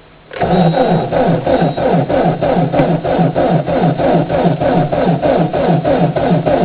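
Diesel car engine cranked over by its starter motor in severe frost, starting abruptly and turning slowly and unevenly at about four compression pulses a second, the starter's pitch dropping on each one: a hard cold start where the engine has not yet caught.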